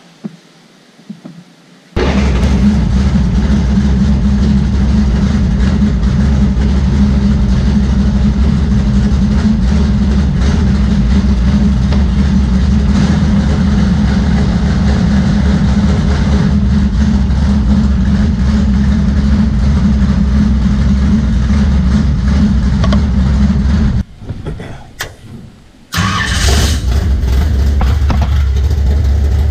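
Car engine that catches about two seconds in and runs loud and steady. It drops away for about two seconds near the end, then runs again.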